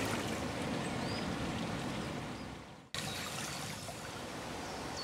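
Water of the River Chor, a shallow stream, running over stones and pebbles in a steady rush. The sound fades out a little over halfway through, then cuts back in at much the same level.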